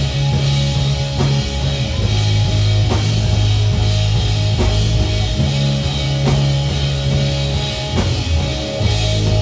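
Live rock band playing an instrumental passage: drum kit with regular hits over sustained bass notes and guitar.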